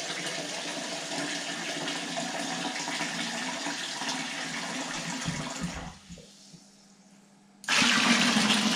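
Cold water running steadily from a tap, stopping about six seconds in; then, near the end, a plastic jug of water poured into a plastic fermenting bucket of beer wort, a louder splashing pour.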